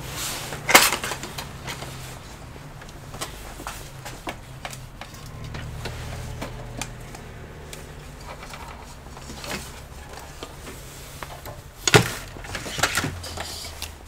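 Clatter of small hard objects being handled on a workbench: two sharp knocks, about a second in and near the end, with lighter clicks between, over a low steady hum.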